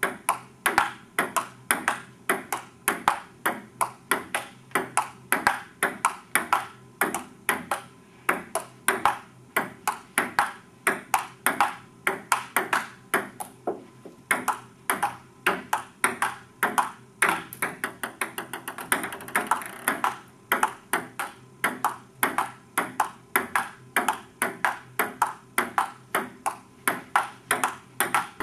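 Table tennis rally: the ball clicking off paddles and the table in a steady, continuous rhythm of about two to three hits a second.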